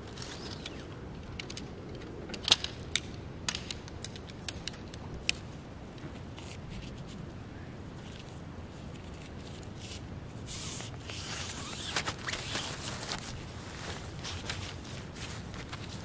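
Nylon tent fabric rustling and crinkling as it is unfolded and pulled flat by hand, heaviest past the middle. A few sharp clicks come in the first five seconds.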